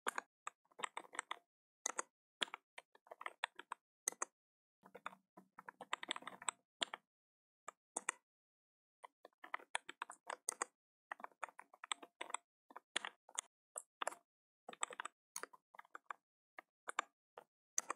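Typing on a computer keyboard: faint, irregular keystroke clicks, with a pause of about a second and a half about halfway through.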